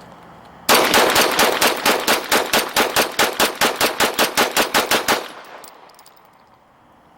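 Rapid gunfire: a fast, evenly spaced string of about twenty shots, roughly five a second. It starts suddenly just under a second in and stops about four and a half seconds later, leaving a fading echo.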